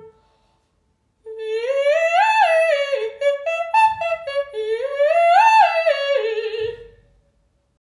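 A woman's classically trained voice singing a wordless vocal warm-up exercise: two smooth phrases, each climbing step by step to a high note and stepping back down.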